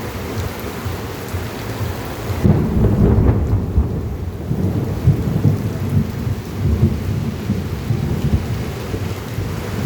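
Heavy rain falling on a city street, with a low, uneven rumble that comes in about two and a half seconds in and goes on under the rain.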